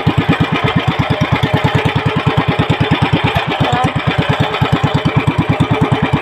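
Small fishing boat's engine running steadily under way, a rapid even putter of about ten beats a second.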